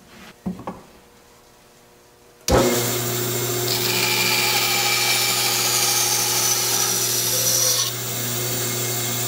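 Bandsaw running, starting abruptly about two and a half seconds in and stopping abruptly near the end, with a steady hum under a hissy whir. Before it, a few light knocks of wood being handled.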